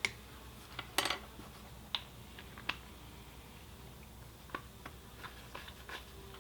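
Scattered light clicks and taps of a small spoon against a mixing cup as green colourant is spooned into epoxy resin. The sharpest tap comes about a second in.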